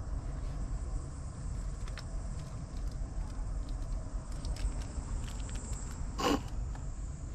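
Outdoor ambience: a steady high insect drone over a low rumble, with light scratches and taps as a kitten moves about. About six seconds in there is a short, louder rustle as the kitten brushes against the camera.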